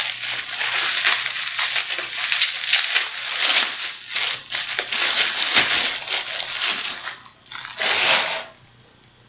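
Rustling and crinkling of packing material as hands rummage through a subscription box, with uneven swells, then one last loud burst near the end.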